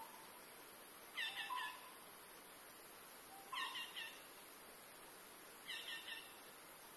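A bird calling in the forest: a short phrase of three quick clear notes, repeated three times about two seconds apart, over a steady high hiss.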